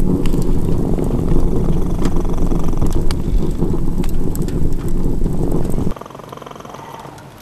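A cat purring right against the microphone, a loud, steady low rumble that cuts off suddenly about six seconds in, leaving a much quieter background.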